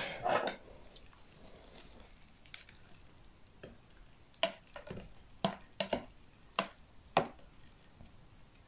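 About half a dozen short, sharp clicks and taps in the second half, made as metal feeding tweezers and plastic containers are handled.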